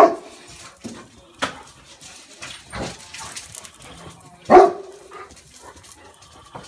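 A dog barking twice, once at the start and again about four and a half seconds in. Between the barks a metal spatula scrapes and taps on a flat-top griddle.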